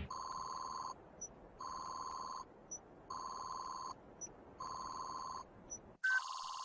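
Electronic alarm tone from a sci-fi detector, signalling a sudden life-form reading: four long beeps about a second and a half apart, each followed by a short high blip. Near the end it changes to a different, steadier alarm tone.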